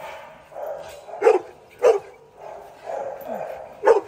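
Dog barking: three sharp single barks, two close together about a second in and one near the end, over a softer steady background sound.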